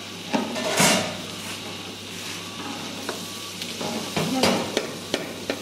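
Long metal spoon stirring rice and browned vermicelli frying in a large aluminium pan: the grains sizzle and the spoon scrapes through them against the pan, with louder strokes about a second in and again near the end.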